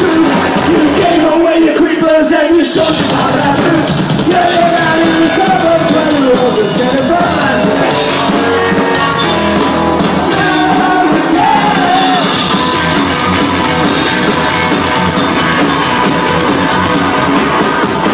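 Rockabilly-style trio playing live and loud, heard through a phone's microphone: an electric guitar plays a lead line over upright bass and drums in an instrumental break with no singing.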